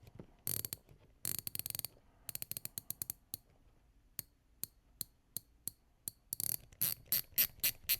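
Dive-watch bezel on a Heimdallr SKX homage being turned click by click, giving sharp, tinny clicks. The clicks come in quick runs, then singly about every half second, then in faster louder runs again near the end.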